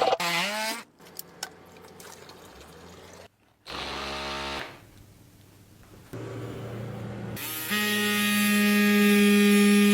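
Several short, varied sounds, then from about eight seconds in a small electric motor, like a power tool's, running with a steady hum.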